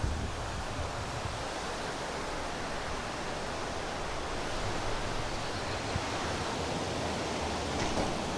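Steady rushing of fast-flowing river water at a dam: an even, unbroken wash of noise.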